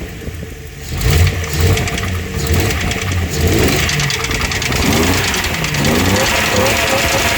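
Datsun engine running, its level dropping for about the first second, then revved in a series of throttle blips that rise and fall in pitch.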